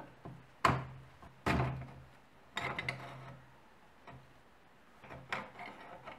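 The hinged sheet-metal doors of an old carbide railroad lantern being pried and swung open with a screwdriver: a few sharp metal clicks and clanks, each with a brief ring, and a rattle of the loose doors about halfway through.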